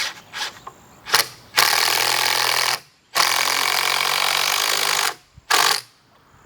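Power drill running: a run of about a second, a brief pause, a longer run of about two seconds, then a short burst near the end.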